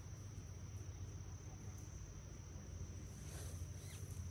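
Insects trilling in one steady high unbroken tone over a low steady rumble, with faint rustling near the end.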